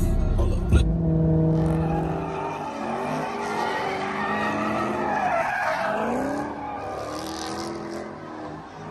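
Car tyres squealing through burnout donuts, the squeal wavering up and down in pitch over the engine running hard.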